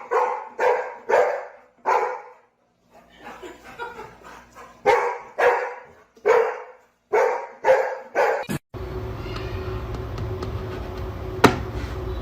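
A dog barking over and over in short, sharp barks, with a brief pause partway; the barking stops abruptly about three-quarters through, giving way to a steady low hum.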